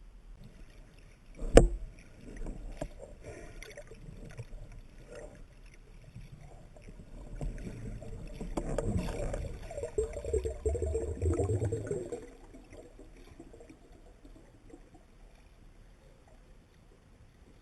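A single sharp knock about a second and a half in, then water sloshing and gurgling close to the microphone, loudest in the middle and dying down after about twelve seconds.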